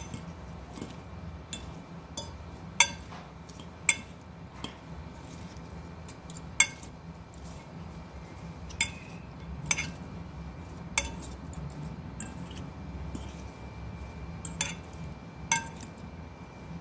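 Two metal forks clinking against a glass bowl while tossing a shredded cabbage salad, in irregular sharp clicks, some leaving a brief glassy ring.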